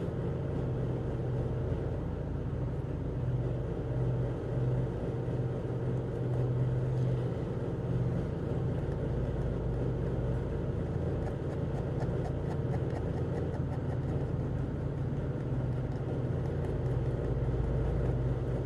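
Steady hum of an electric room fan running, with faint light scratching in the second half.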